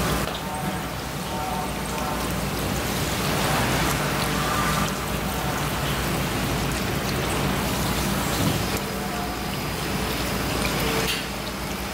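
A thin stream of running tap water splashing steadily onto a gutted fish as its belly cavity is rinsed and cleaned out by hand.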